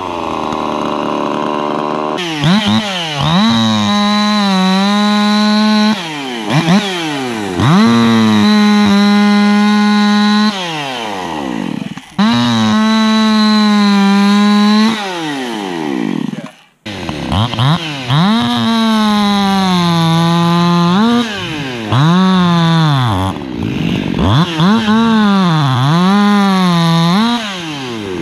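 Two-stroke race chainsaw revving hard in repeated bursts, each held at high revs for two or three seconds and then falling back to idle, the pitch sagging as the chain cuts into a wooden beam.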